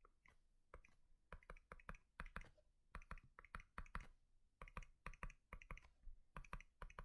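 Faint, irregular clicking and tapping, a few sharp clicks each second, starting about a second in.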